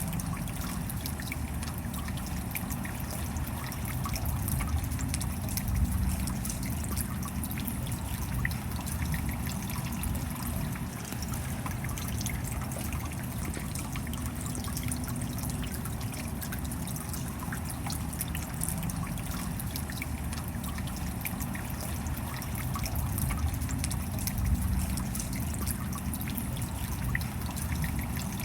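Steady rain: a continuous wash of falling water with many small drop ticks and trickling, dribbling water.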